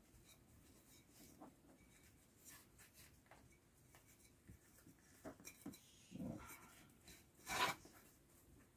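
Thin parcel string being pulled through punched holes in a leather grip wrap on a wooden handle: faint rubbing and rustling of cord on leather, with a louder, brief scrape of the cord near the end.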